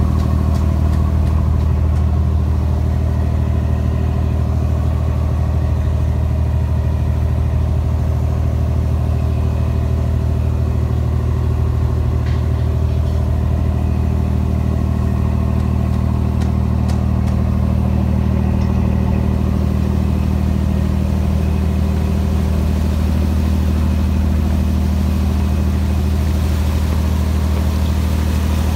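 Fishing boat's diesel engine running at a steady speed, an even low drone that does not change.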